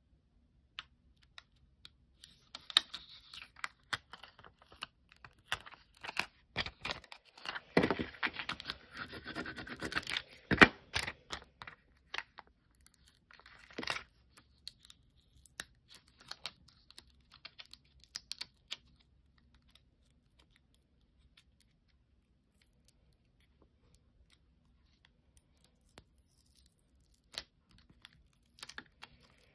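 Crinkling, crackling and peeling of plastic transfer sheet and vinyl backing being handled and pulled apart, with scattered light clicks. The sound is busiest in the first half, peaks around a third of the way in, and thins to occasional small crackles near the end.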